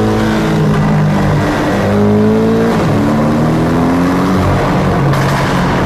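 Porsche 718 Boxster GTS engine accelerating in gear. Its note climbs, drops briefly twice about one and a half and three seconds in as the gearbox shifts, then climbs again.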